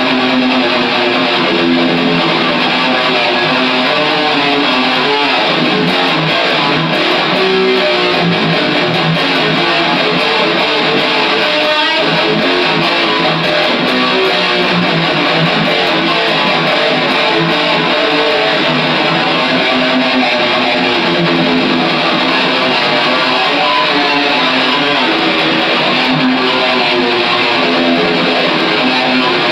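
Electric guitar played without a break, picked steadily as one continuous piece.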